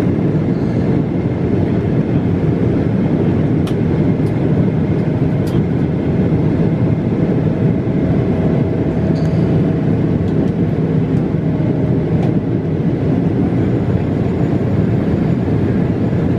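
Jet airliner cabin noise heard from a window seat beside the wing during the climb: a steady rush of the turbofan engines and airflow over a low hum. A faint steady whine joins in the middle.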